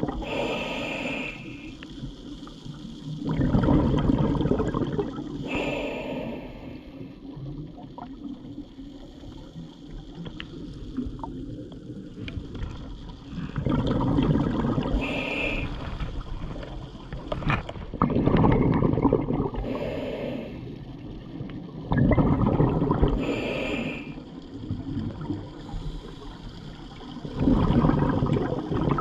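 Scuba diver breathing underwater through a regulator: each breath is a short hiss of drawn air followed by a rush of exhaled bubbles. There are about five breaths several seconds apart, with a longer pause near the middle.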